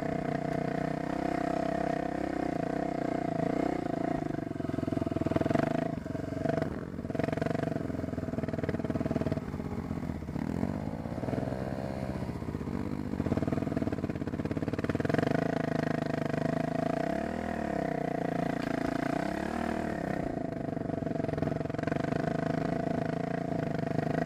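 Single-cylinder dirt bike engine running steadily under throttle while riding a rough trail. Its note dips and rises as the throttle is rolled off and back on, around the middle and again about two-thirds through.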